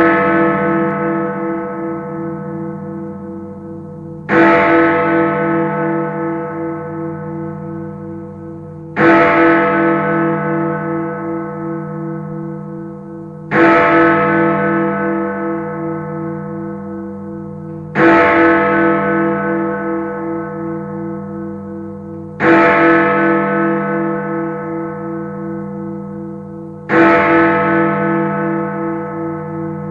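A large bell tolling slowly, struck about every four and a half seconds, six times. Each stroke rings on with a wavering hum as it fades.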